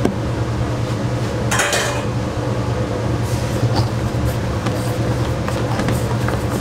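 Spatula scraping and clinking against a stainless steel mixing bowl while whipped meringue is folded into egg-yolk batter, with a louder scrape about a second and a half in. A steady low hum runs underneath.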